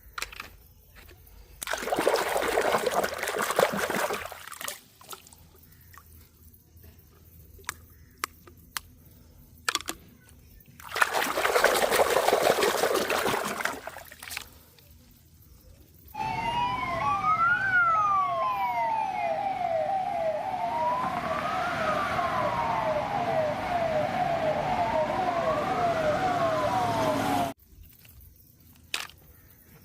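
Electronic toy siren wailing for about eleven seconds: a slow rise-and-fall wail with a fast warble over it, cutting off suddenly. Before it come two short bursts of running water a few seconds apart, with scattered small clicks.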